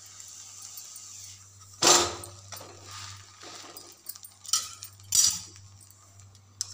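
Metal spatula scraping and knocking against a cast-iron tawa while a besan-and-bread cheela is flipped over, with one loud clatter about two seconds in and a few lighter knocks after.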